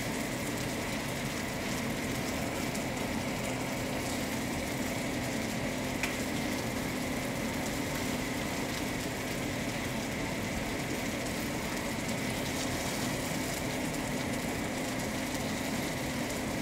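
Chicken pieces sizzling steadily as they fry in a stainless steel skillet over a gas flame, with a steady hum underneath. There is one light click about six seconds in.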